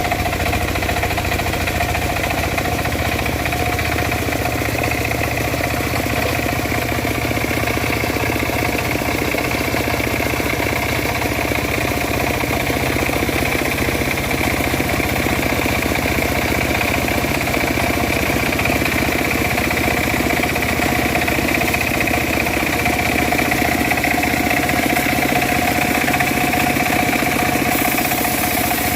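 Homemade bandsaw mill running steadily, its motor and blade giving a steady whine over a low rumble, sawing dry teak.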